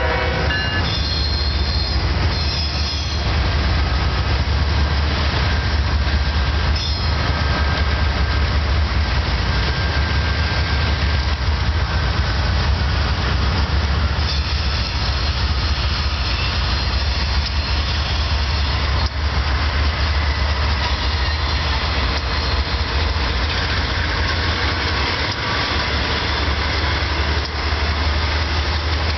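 BNSF GE diesel freight locomotives passing close by under load, a deep steady engine rumble over the noise of steel wheels on rail. Thin wheel squeal comes and goes as the double-stack container cars and a second freight roll past.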